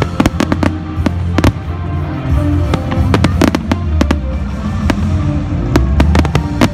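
Fireworks going off in quick, irregular clusters of sharp cracks and bangs over music playing underneath.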